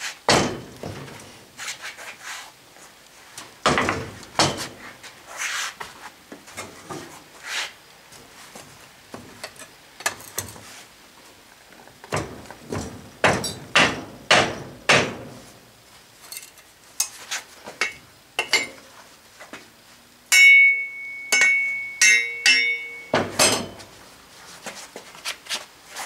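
Sand mould being broken open: repeated knocks and scrapes of tools striking and prying out the packed, oil-bonded casting sand around a freshly poured aluminium casting. Near the end comes a louder steady high ringing sound lasting about two and a half seconds, then a final sharp knock.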